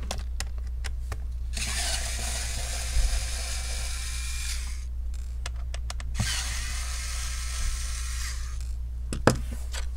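Electric precision screwdriver running twice, for two to three seconds each time, backing out the Phillips screws hidden under a laptop's rubber feet. There are small clicks between the runs and a sharp knock near the end.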